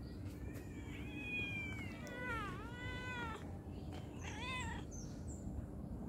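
Domestic cat meowing three times: a drawn-out call that slides slightly down in pitch, a longer one that dips and rises again, then a short arched meow about four seconds in.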